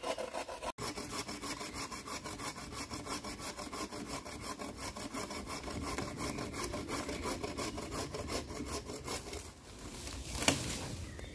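Small hand saw cutting through a green tree branch in quick, regular back-and-forth strokes. The strokes fade about nine and a half seconds in, followed by a few sharper knocks.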